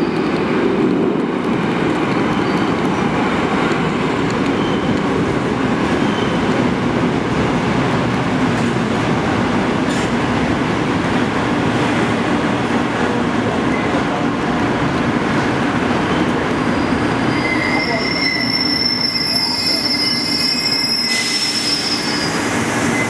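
Korail electric commuter train pulling into an underground station: a steady rumble of wheels on the rails. About eighteen seconds in, a high squeal sets in as it slows, and a short hiss follows near the end.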